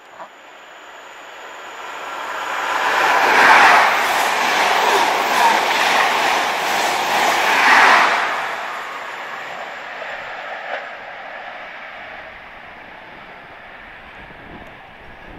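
Class 43 High Speed Train running through at speed. It swells to a loud rush as the front power car goes by, holds a steady wheel-and-air noise along the coaches, peaks again as the rear power car passes, then fades as it draws away.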